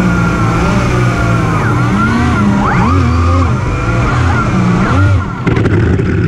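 Electric motors and propellers of a large RC hovercraft running at speed: the two thrust props and the skirt lift fan whir together with rushing air, their pitch rising and falling as the throttle changes.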